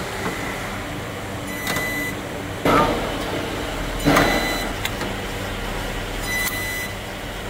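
Resistance spot welding gun fusing a car body's A-pillar panel: four short welding strokes a second or two apart, the two loudest in the middle, some with a brief beep, over a steady electrical hum.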